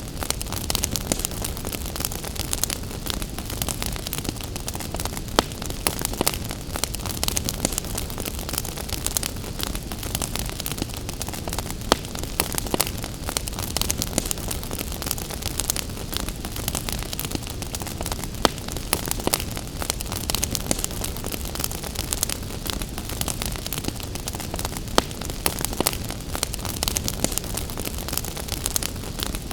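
Wood fire crackling in a fireplace, with many sharp irregular pops and snaps over a steady hiss of gentle rain.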